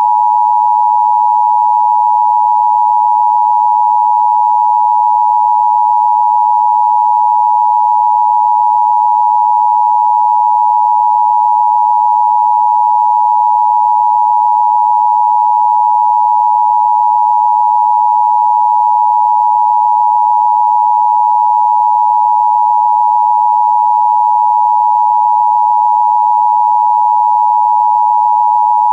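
Emergency Broadcast System attention signal, the two-tone alert tone, held steady and loud without a break.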